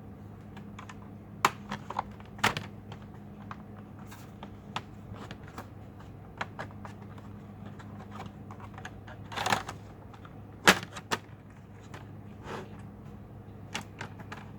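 Irregular plastic clicks and taps from an HP 15-R029WM laptop being handled and taken apart, with a few louder knocks and a short scrape about two-thirds through, over a faint steady low hum.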